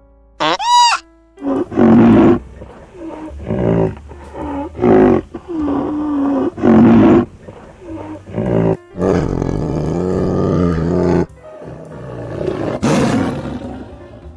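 A large animal calling loudly and repeatedly: a run of short calls, then two longer, rougher calls lasting about two seconds each.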